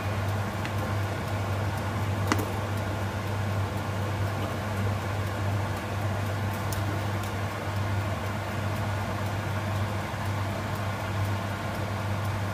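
A steady low machine hum runs without change, with a single sharp click about two seconds in.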